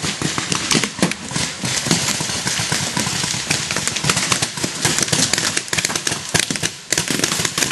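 Paintball markers firing from several players at once: a dense, ragged stream of sharp pops with many shots a second.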